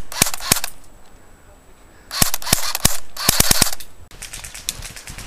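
Airsoft rifle firing: a couple of shots at the start, then two rapid strings of shots a little after two seconds and again around three seconds.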